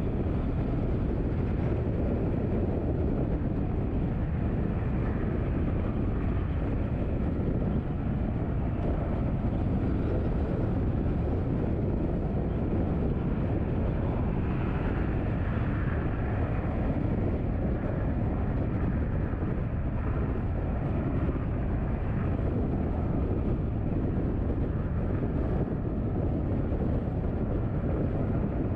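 Steady road noise of a car being driven: a low rumble of tyres and engine that holds level, with no sharp events.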